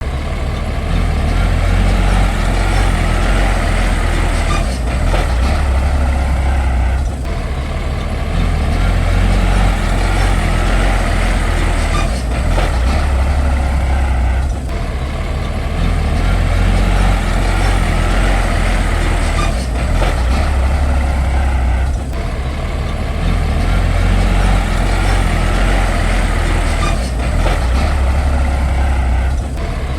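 Heavy diesel earthmoving machinery, a bulldozer or dump truck engine, running loud and steady under load. The engine note dips and swells in a regular cycle about every seven seconds.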